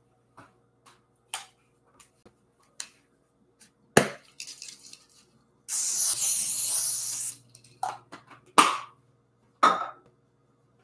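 Kitchen clatter: a string of knocks and clinks as things are handled and set down, with the loudest knock about four seconds in. Midway comes a steady hiss lasting about a second and a half, which starts and stops abruptly: a can of cooking spray being sprayed.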